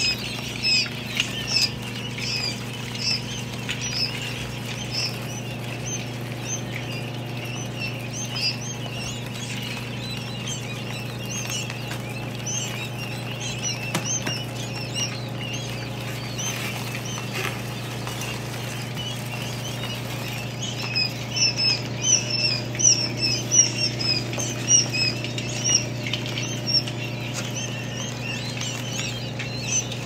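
Newly hatched quail chicks peeping: many short, high chirps overlapping, getting louder and busier about two-thirds of the way through. Under them runs the steady low hum of the running hatcher.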